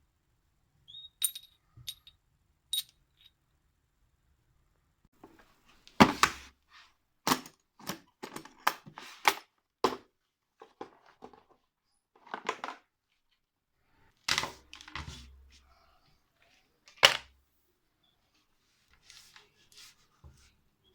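Irregular sharp knocks and clicks of metal objects being handled and set down, a few light ticks at first, then a dozen or more harder knocks at uneven spacing.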